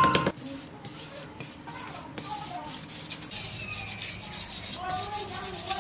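Metal spoon scraping across loose dry soil in a series of rough, irregular strokes, smoothing the ground flat.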